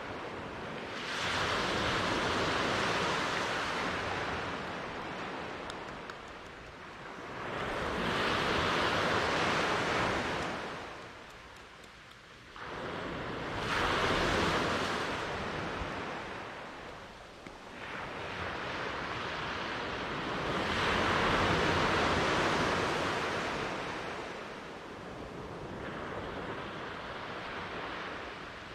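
Ocean surf: waves breaking and washing up the shore, a rushing hiss that swells and fades about every six seconds, one wave coming in more abruptly about halfway through.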